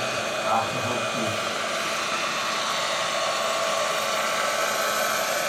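Turbine engine and rotor of a large scale RC EC-145 helicopter running steadily in low flight: an even whine.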